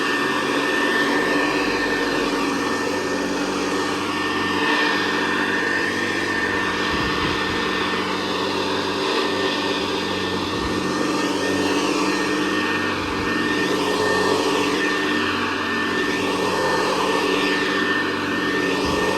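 Hoover Convertible Model 68 upright vacuum cleaner, a direct-air machine with a triple-action agitator, running steadily on carpet with a steady high whine. Its tone rises and falls a little every few seconds.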